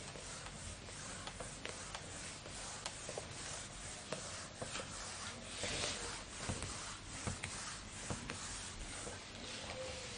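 Whiteboard being wiped with a hand-held duster: faint, uneven rubbing with scattered light ticks, a little louder about six seconds in.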